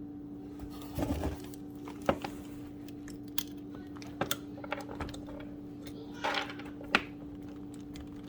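Small parts being handled on a workbench: scattered clicks and knocks with a brief rustle about six seconds in, over a steady low hum.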